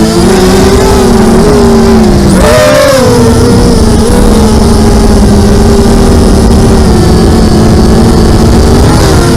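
FPV drone's electric motors and propellers buzzing in flight, the pitch wavering with throttle. About two and a half seconds in, a short throttle punch sends the pitch up before it falls back to a steady buzz.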